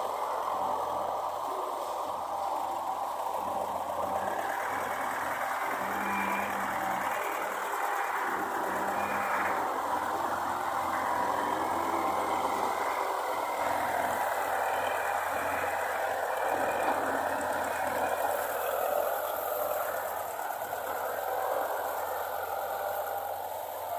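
Heavy farm machinery engine running steadily.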